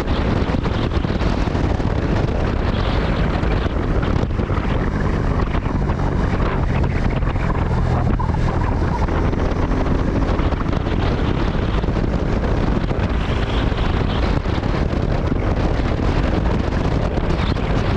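Steady wind rushing over the microphone of a moving motorcycle rider, with the Suzuki Gixxer 250's single-cylinder engine running faintly underneath.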